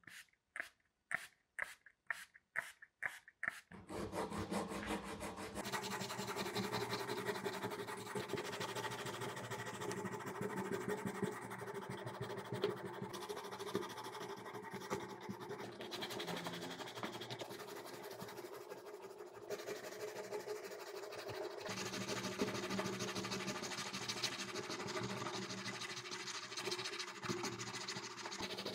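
Hand rubbing over the filler-coated plastic housing of an old Black & Decker BD 561 electric drill. It starts as separate strokes, two or three a second, and from about four seconds in becomes continuous, rapid rubbing.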